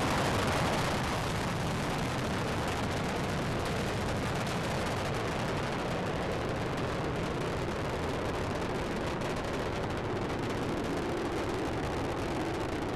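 Steady roar of a space shuttle's solid rocket boosters and main engines during ascent, easing slightly after the first second.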